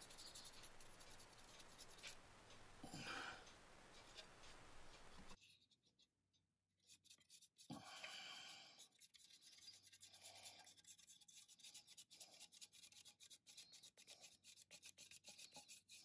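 Faint scratchy strokes of a paintbrush dry-brushing paint over a 3D-printed plastic mug. The sound drops out completely for about a second and a half around five seconds in, then the soft brushing and small ticks resume.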